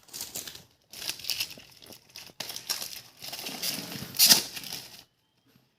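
Packaging of an earbuds box being worked open by hand: crinkling, rustling and tearing in uneven bursts, loudest about four seconds in, then stopping near the end.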